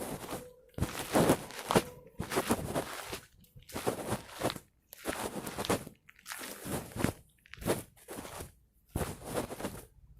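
Footsteps crunching on a loose surface in a steady series of short steps.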